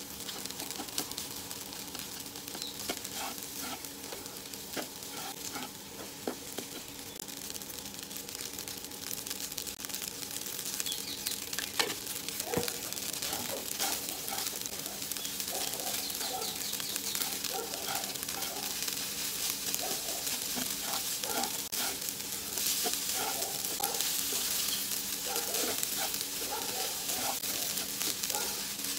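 Fried rice with mixed vegetables sizzling in a nonstick wok while a spatula stirs and scrapes it, giving many short scraping strokes over a steady sizzle. The frying grows a little louder about ten seconds in.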